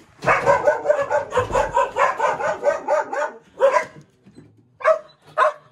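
Dogs barking: a fast run of barks, about five a second for roughly three seconds, then a few single barks spaced about a second apart.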